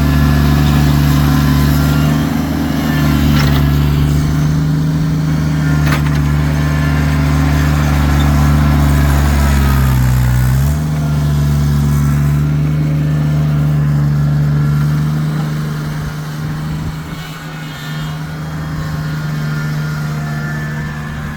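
Kubota tractor's diesel engine running steadily at working revs. About ten seconds in its pitch sags briefly, as under load, then recovers. A few sharp knocks come in the first half, and the engine grows quieter over the last few seconds.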